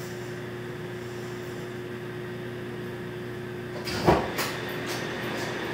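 Steady electrical hum. About four seconds in, a door is pushed open with a sudden loud clatter, followed by a few lighter knocks.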